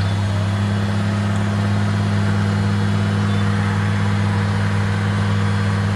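Steady low hum of an idling engine, unchanging in pitch and level.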